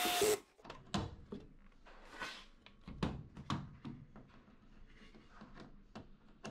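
A cordless drill driver runs a screw home and stops sharply about a third of a second in. It is followed by scattered light clicks and knocks as the drill and screw are handled against the washer's metal cabinet.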